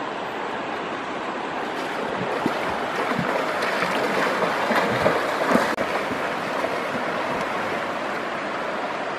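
A person wading and running through waist-deep river water, splashing loudest from about two to six seconds in, over the steady rush of the flowing river.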